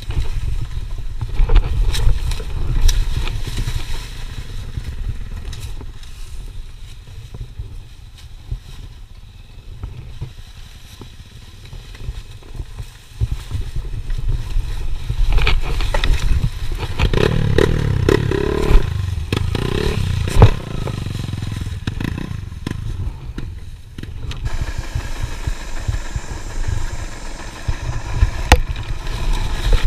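Enduro dirt bike's engine running at low revs on a rough downhill, with frequent knocks and clatter from the bike over rocks and branches. The engine gets louder for a few seconds a little past halfway.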